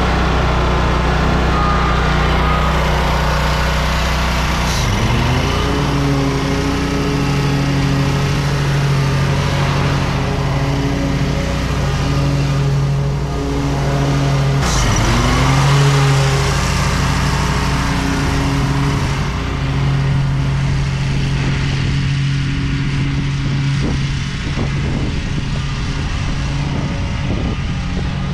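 Lawn mower engine running steadily at a constant speed. Its pitch dips sharply and recovers twice, about five and fifteen seconds in.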